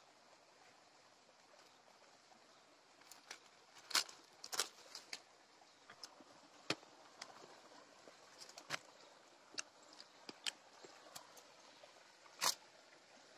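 Scattered sharp clicks and crackles, about a dozen, loudest about four seconds in and near the end, over a faint steady hiss.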